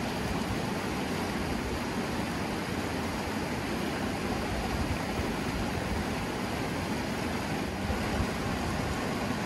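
Steady rushing noise, with nothing standing out of it.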